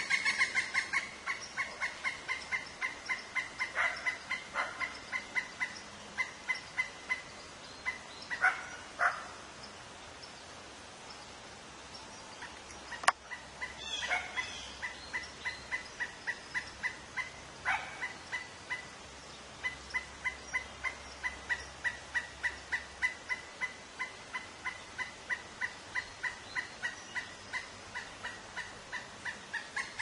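Pileated woodpecker calling: a long, loud series of short, evenly repeated notes at about four a second. The notes thin out partway through and then resume steadily. A single sharp click sounds about halfway through.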